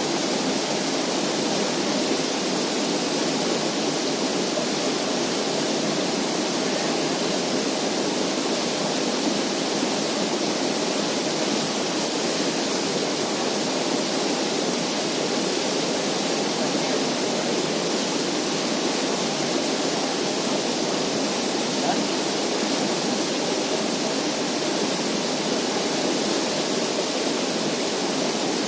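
A steady, even rushing noise that runs without a break or change in level.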